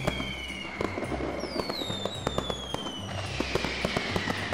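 Fireworks: long whistles falling slowly in pitch, one fading early on and another starting about a second and a half in, over a constant crackle of small sharp pops.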